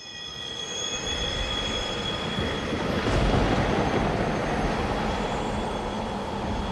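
Dense rumbling, hissing noise that fades in over the first second, with several steady high-pitched squealing tones over it that fade away by about halfway through.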